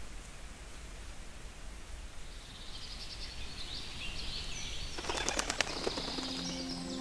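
Small songbird calling in quick high chirps, then a short flutter of wings as it takes off about five seconds in. Soft music comes in near the end over a faint steady background.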